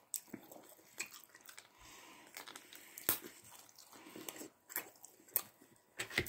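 Close-up eating sounds: a person biting into and chewing a slice of Domino's pizza, with scattered soft crunches of the crust and wet mouth clicks.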